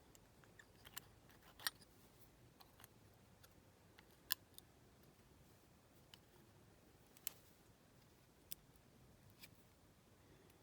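Near silence broken by about five faint, sharp clicks and taps, several seconds apart: the clear plastic window glass and the die-cast toy car body being handled as the glass is pressed into place.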